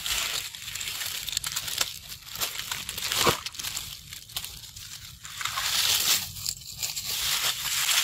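Close crinkling and crackling rustle with scattered sharp clicks, loudest about three seconds in.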